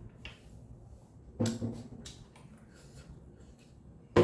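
Eating sounds: fingers mixing rice on a metal plate, with a sharp double knock about a second and a half in and another sharp knock near the end.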